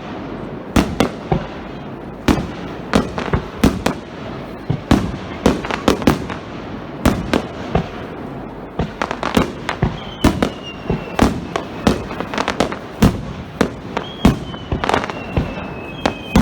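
Starmine fireworks barrage: shells bursting in rapid succession, several sharp bangs and crackles a second. From about two-thirds of the way in, thin whistling tones glide down in pitch among the bursts.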